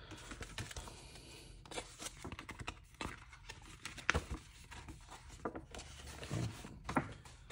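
Paper and plastic packaging rustling and crinkling as a poster is worked out of it, with scattered small clicks and taps and one sharper tap about four seconds in.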